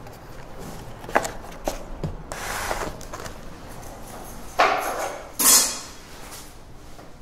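Objects handled on a wooden dresser top: a few light knocks in the first two seconds, then two louder scrapes about five seconds in.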